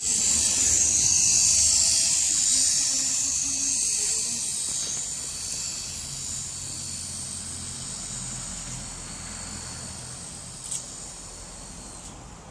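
Small electric motor and rotor blades of a toy RC helicopter whirring steadily, loudest at the start and fading gradually.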